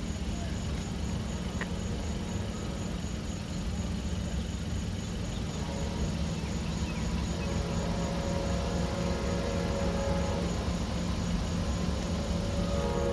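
An approaching Amtrak train led by a P42DC diesel locomotive: a low rumble that builds slowly. Its horn sounds in the distance from about halfway through, turning into a fuller, louder chord just before the end.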